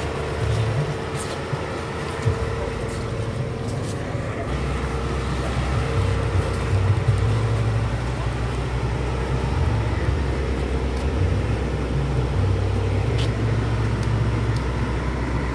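A vehicle engine idling, a steady low rumble that grows slightly about four seconds in, with people chatting in the background.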